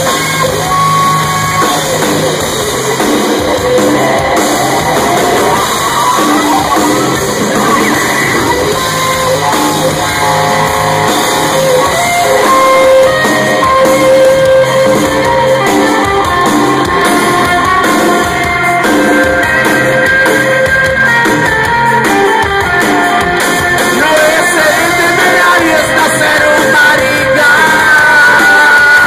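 Live rock band playing loudly: electric guitars and drums under a lead singer, heard from the crowd in a club.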